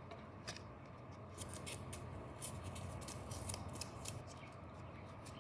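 Paper being folded and creased by hand: faint, irregular crinkling and rustling with quick little ticks.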